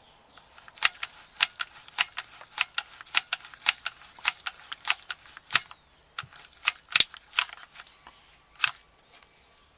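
Hot glue gun trigger clicking repeatedly as glue is fed out: sharp clicks about three a second at first, then fewer and farther apart.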